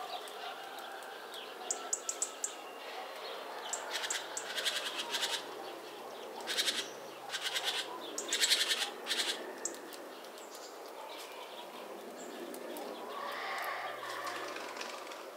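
Great tits calling at a feeder: a few quick, thin high notes, then a series of harsh, rasping churring calls in the middle, with a softer, lower call near the end.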